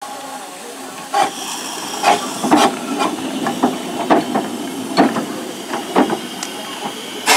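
15-inch gauge steam locomotive River Esk standing on a turning turntable, hissing steam steadily, with a dozen or so sharp irregular clanks and knocks from the moving turntable and engine.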